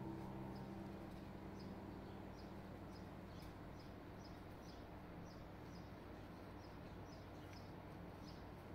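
A piano chord from the background music dies away, leaving a faint hiss with soft, evenly spaced high chirps about twice a second.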